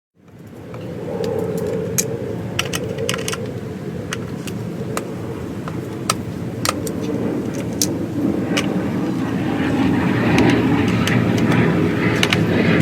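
Vacuum cleaner motor running steadily, with scattered sharp clicks and rattles over it; it grows a little louder toward the end.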